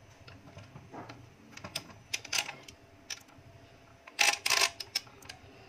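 Handling noise: scattered light clicks and taps, with a quicker run of them about four seconds in.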